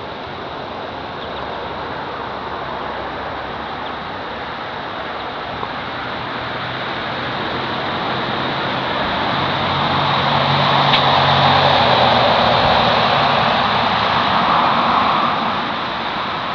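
A vehicle passing: a steady outdoor hiss swells into a low engine hum from about six seconds in, loudest for several seconds near the middle, then eases off near the end.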